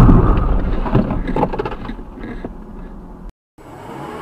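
Loud crash noise from a car collision dying away over about three seconds as the car comes to rest, heard from inside it: a low rumble with scattered knocks and clatters. It cuts off abruptly and gives way to a quieter, steady vehicle hum.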